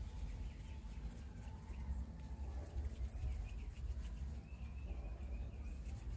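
Faint backyard ambience: birds calling and chickens clucking over a steady low rumble, with one longer held call about four and a half seconds in.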